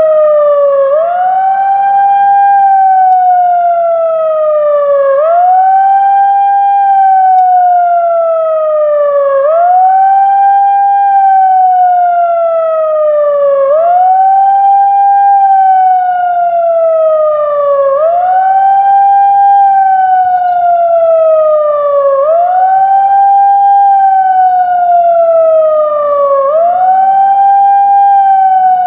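TOA electronic siren sounding a repeating wail. Each cycle jumps quickly up in pitch, then slides slowly back down over about four seconds, about seven times in a row.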